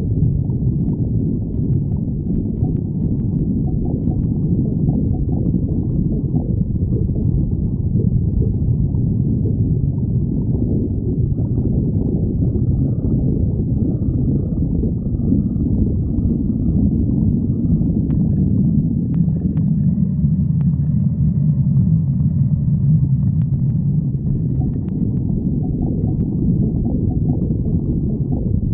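Human stomach growling: a continuous low rumble, with faint higher whining tones joining in through the middle stretch.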